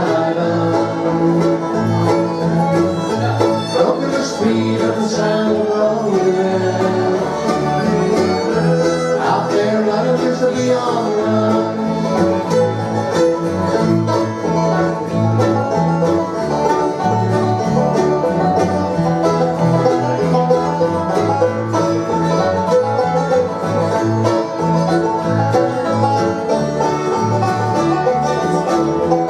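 Bluegrass band playing an instrumental break, with banjo and guitar picking and a fiddle.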